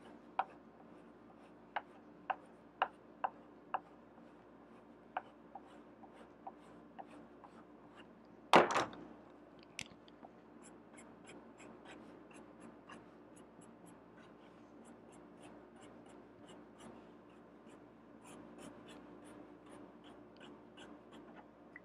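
Drawing on paper: a red pencil's tip tapping and scratching in short strokes, a louder knock about eight and a half seconds in, then a green marker making quick short strokes with many small ticks.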